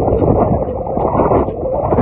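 10¼-inch gauge miniature steam locomotive running past close by, a loud rough steady noise from its exhaust and running gear, mixed with wind buffeting the microphone.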